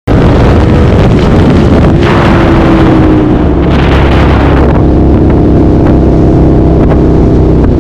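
Suzuki SV650's V-twin engine running loud and hard under acceleration, with heavy wind rush on the microphone. The engine note changes character about two seconds in and again near five seconds.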